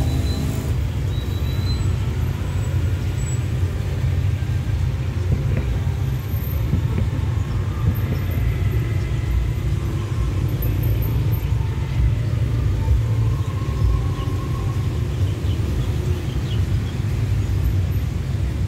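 Steady low rumble of road traffic, motorcycles and cars waiting at a railway level crossing.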